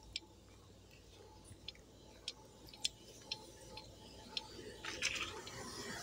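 Faint footsteps crunching on a gravelly dirt trail, short sharp steps at a walking pace of about two a second, with soft rustling rising near the end.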